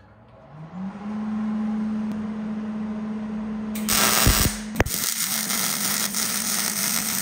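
Miller Millermatic 211 MIG welder switched on, its hum rising in pitch and then holding steady. About four seconds in the arc strikes and crackles steadily on steel, with a brief break partway.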